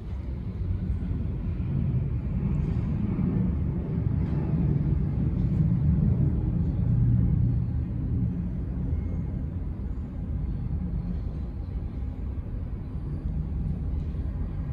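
Low rumble of a jet airliner's engines, swelling over a few seconds and then easing off.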